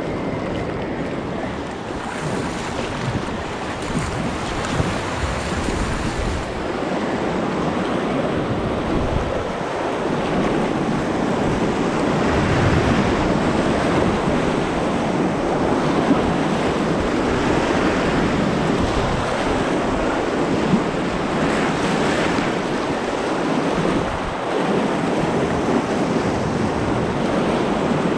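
Gunnison River whitewater rushing, a steady noisy wash of moving water that grows a little louder about ten seconds in, with wind buffeting the microphone.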